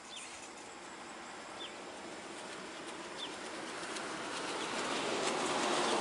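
A vehicle approaching, its engine and road noise swelling steadily louder, with a small bird giving three short, high, falling chirps about a second and a half apart.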